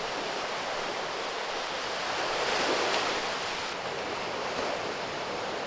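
Sea waves washing over shore rocks, swelling to a surge about halfway through and then easing back.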